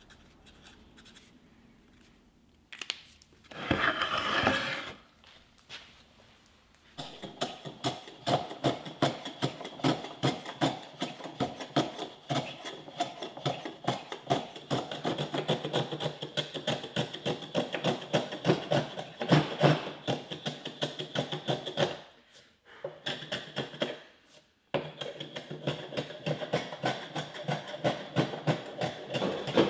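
Quick, repeated scraping strokes of a hand tool working wood, with a brief louder rush of noise about four seconds in.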